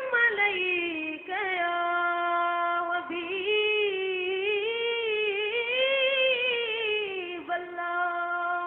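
Boys' high voices singing an unaccompanied Arabic salawat to the Prophet: a single melodic line of long, ornamented held notes that rise and fall.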